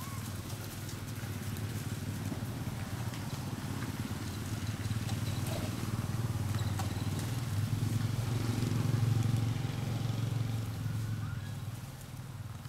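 A low engine drone, growing louder to a peak about nine seconds in and fading away near the end, like a motor vehicle passing at a distance. Faint scattered clicks sound above it.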